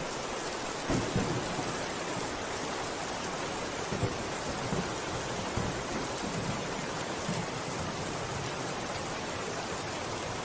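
Steady rain falling as an even hiss, with low rumbles of thunder swelling now and then.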